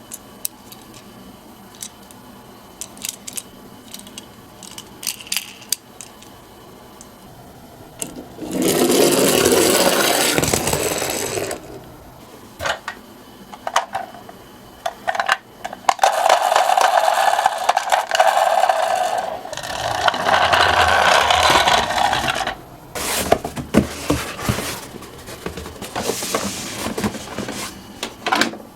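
Toy minicars handled with small clicks and knocks, and several times rolling down a slope, each run a rattling scrape of small wheels lasting two to three seconds.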